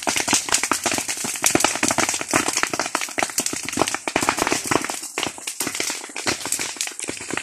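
A brush fire in dry grass and vegetation crackling and popping with rapid, irregular sharp cracks, thinning a little over the last couple of seconds.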